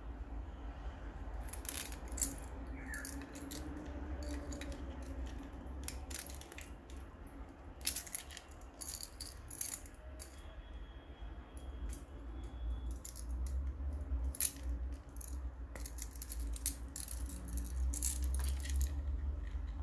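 A metal ball chain on a small plastic whistle rattling as it is handled, in irregular clicks and jingles.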